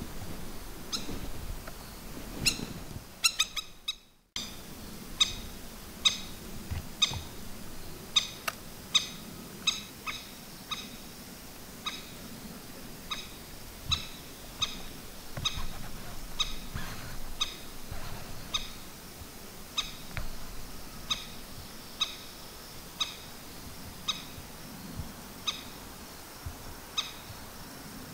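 Crested kingfisher giving short, sharp call notes, repeated irregularly about once a second, with a quick run of notes near the start.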